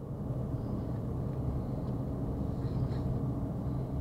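Steady road and engine noise inside a moving car's cabin: a constant low rumble with a steady hum.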